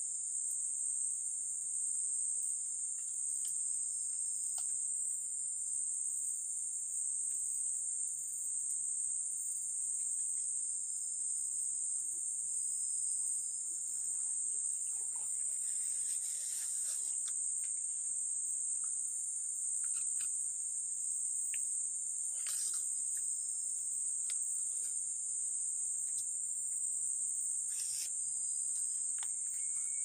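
Forest insects droning steadily at a high pitch, with faint short bird-like chirps and a couple of sharp ticks in the second half.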